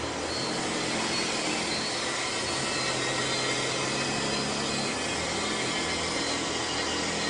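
Forklift engine running steadily as it raises and carries a long bundle of steel profiles, with a low hum that shifts slightly midway, under a constant hiss of factory machinery noise.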